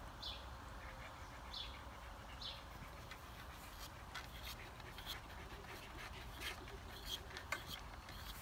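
Faint hand-stripping of a wiry terrier coat: small ticks as tufts of hair are plucked out, with a few short bird chirps in the first few seconds.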